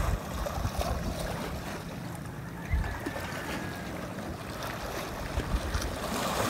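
Shoreline ambience: a steady wash of sea water with irregular low wind rumble on the microphone.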